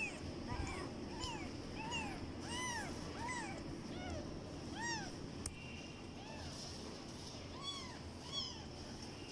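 Ten-day-old kittens mewing: a run of short, high, rise-and-fall cries, one about every half-second, thinning to a few spaced-out cries after about five seconds.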